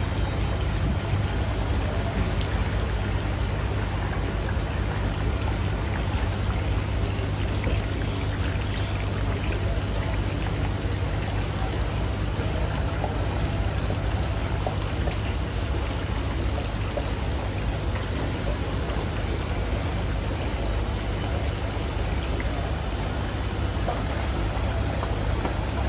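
Steady bubbling and trickling of water in aerated live lobster tanks, over a low steady rumble.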